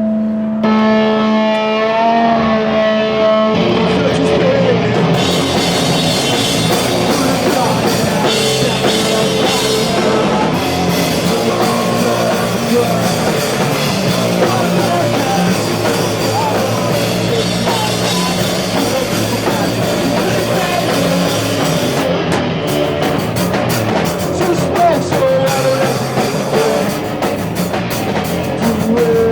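Punk band playing live: a held note rings for the first few seconds, then drums and distorted guitars come in together and play on loud and dense.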